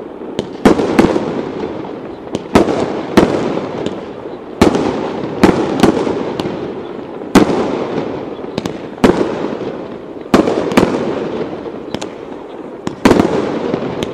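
Aerial firework shells bursting in a rapid, uneven series of sharp bangs, about one or two a second, with a longer pause near the end. Each bang trails off in a long echo.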